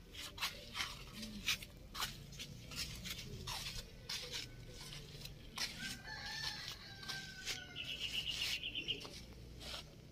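A rooster crowing once from about the middle, a held call of some two seconds, with a quick trill of rapid pulses just after it. Short taps and scuffs sound throughout, loudest in the first two seconds.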